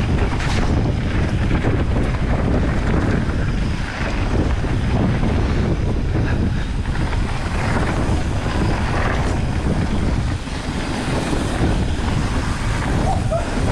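Wind buffeting the microphone over the steady rumble of a downhill mountain bike riding a wet, muddy trail.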